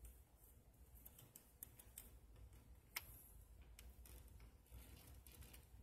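Faint clicks and ticks of the MasterMind Creations R19 Kultur plastic robot figure's joints and parts being moved by hand during transformation, with one sharper click about three seconds in.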